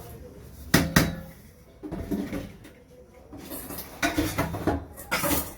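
Dishes and kitchenware clattering as they are handled. There are two sharp knocks just under a second in, then bouts of clinking and scraping around two seconds and again near the end.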